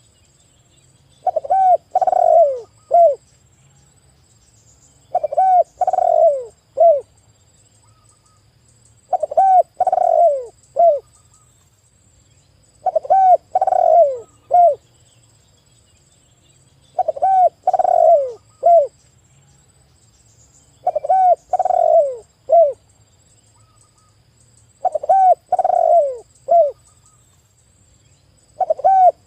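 Spotted dove cooing: a short phrase of three or four falling coo notes, repeated over and over about every four seconds.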